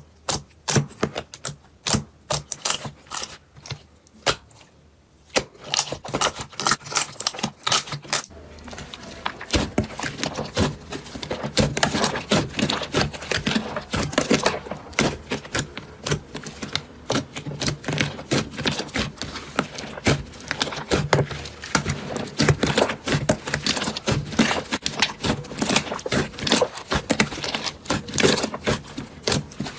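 Slime being squeezed and poked, making quick, sharp sticky clicks and pops. About eight seconds in, the clicks turn into a dense, continuous crackle.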